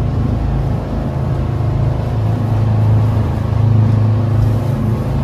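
Motor engine running steadily at a constant speed, a continuous low drone.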